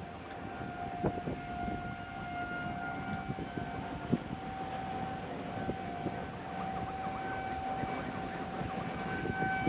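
Outdoor tornado warning siren sounding one steady tone. Near the end, an emergency vehicle siren wails faintly underneath.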